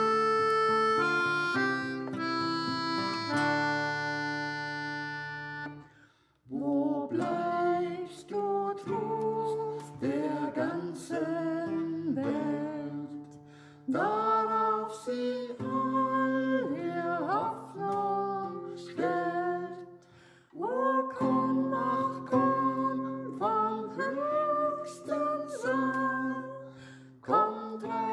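A hymn being performed. A held instrumental chord stops about six seconds in, then a voice sings the melody line over sustained low accompanying notes.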